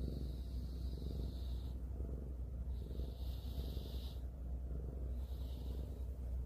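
Domestic cat purring close up, a low steady rumble. A soft breathy hiss comes and goes three times over it.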